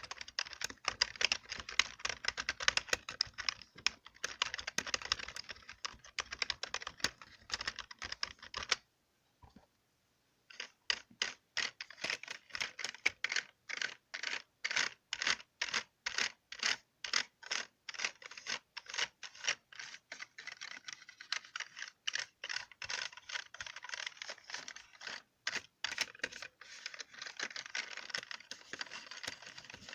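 Computer keyboard keys clicking under rapid typing, then a pause of about two seconds. After that come slower, evenly paced single key presses, about two a second, which quicken back into fast typing near the end.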